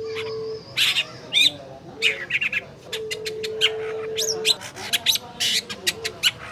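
Long-tailed shrike (cendet) singing a fast, varied song of harsh chattering notes, sharp clicks and quick whistled phrases, a lure recording meant to set a silent caged cendet singing. A low steady hum is held twice under the song, at the start and again about three seconds in.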